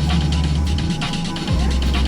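Loud music with a heavy, deep bass line and a steady drum beat.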